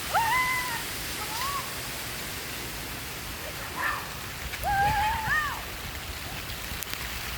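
Steady rushing of water, like rain or a stream, with a few short animal calls over it that rise and then level off or fall: one just after the start and a pair about five seconds in.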